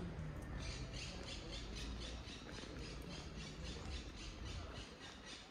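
Pedestrian crossing's audible walk signal: rapid, evenly spaced high chirping pips, about five a second, over low street rumble.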